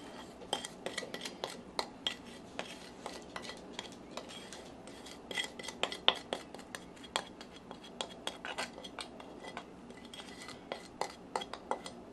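Spoon scraping half-set lard and oil out of a ceramic bowl into a stainless steel mixing bowl: many quick, irregular taps and scrapes, some knocks followed by a brief ringing of the bowl.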